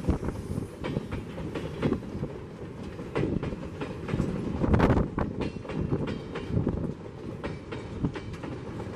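Empty flat wagons of a freight train rolling past, their wheels knocking over the rail joints with a run of irregular clanks and rattles. The loudest clatter comes about five seconds in.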